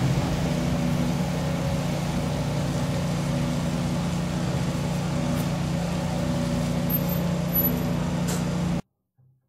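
Fire engine's motor running steadily, a low drone, which cuts off suddenly near the end.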